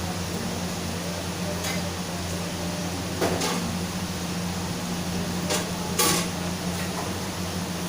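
A few short knocks and clatters of kitchen utensils and dishes, the loudest about six seconds in, over a steady low hum.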